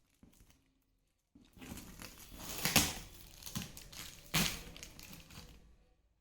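Packaging rustling and crinkling as a cardboard box is unpacked, with two sharper crackles in the middle.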